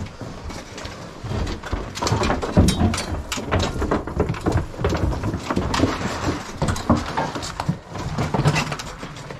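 A heavy object being slid down by hand, scraping and bumping with many irregular knocks and clunks.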